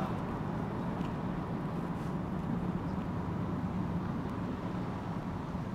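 2006 Chevrolet Silverado Z71 pickup driving, with a steady engine and road hum and no unusual knock, clunk or rattle: the truck sounds normal.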